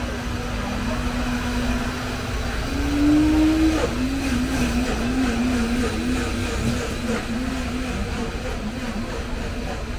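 Street market ambience with a low traffic rumble, and a droning tone that steps up in pitch and is loudest about three seconds in, then wavers up and down about twice a second.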